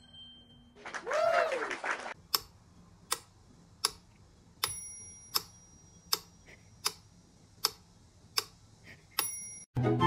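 A kitten's meow that rises and falls. It is followed by a run of evenly spaced sharp clicks, about one every three-quarters of a second, a few of them with a short bell-like ring.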